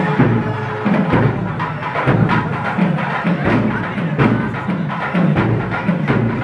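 Music with drums beating steadily, about one stroke a second, and a held note fading out in the first second.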